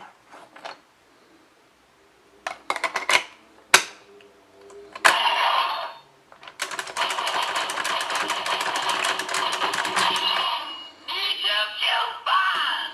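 DX Geartlinger toy morpher being worked by hand: plastic clicks as a gear is fitted, a quick run of ratcheting clicks as the gear is spun, then electronic sound effects and music from the toy's speaker from about five seconds in, with more clicking under them.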